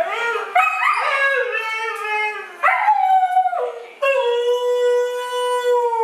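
Siberian husky 'talking' in a string of short rising and falling yowls, then holding one long steady howl from about four seconds in.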